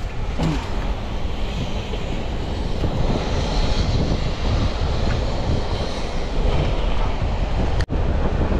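Wind buffeting the microphone over the steady wash of choppy water around a small boat, with a brief dropout near the end.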